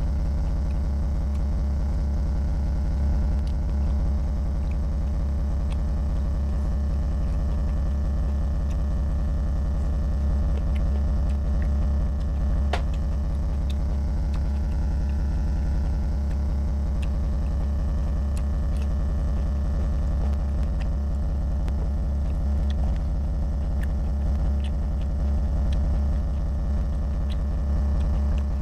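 A steady low hum, over which come faint scattered clicks of chewing and eating by hand, one sharper click about halfway through.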